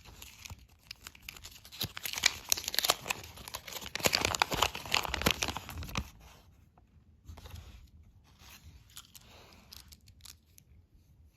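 Plastic candy packaging being crinkled and torn open close up, with dense crackling for about six seconds, loudest from about four seconds in. It gives way to quieter, scattered rustles.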